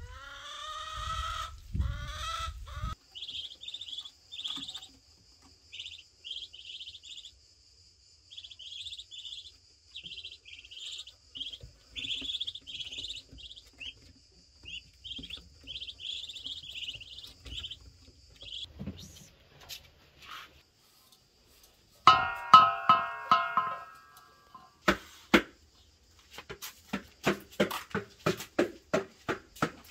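Ducklings cheeping, a long run of short high peeps over a faint steady high tone, after a rising bird call near the start. Later comes a short burst of rapid pitched calls. Near the end, a wooden spoon knocks in a steady rhythm of about three strokes a second in an enamel bowl.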